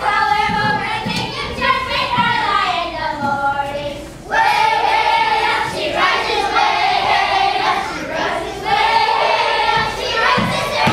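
A group of children singing together in long held notes, sliding down in pitch about a third of the way in, then breaking off briefly and starting up again on steady held notes.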